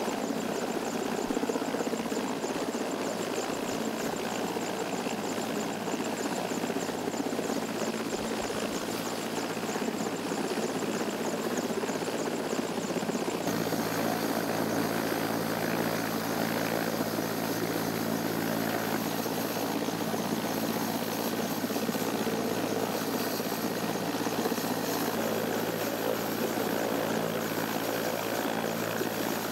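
A helicopter running, a steady, continuous mechanical noise. About halfway through, the sound shifts abruptly to a steadier hum with several low tones held level.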